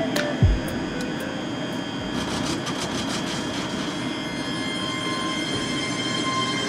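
ScotRail Class 385 electric multiple unit moving slowly past the platform: a steady rumble of wheels and running gear with electric traction whines at several steady pitches, and a single low thump about half a second in.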